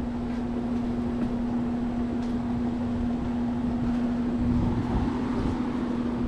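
A steady mechanical hum at one constant pitch, with a few faint clicks and scrapes as a screw jack under a truck axle is wound down by its T-handle.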